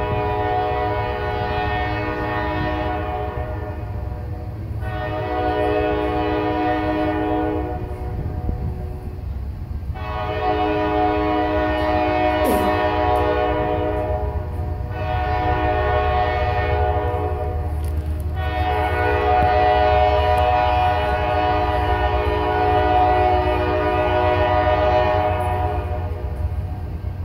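Air horn of a GE Dash 9-44CW freight locomotive sounding a series of five long blasts with several notes at once, the last about seven seconds long, over the steady deep rumble of the approaching train.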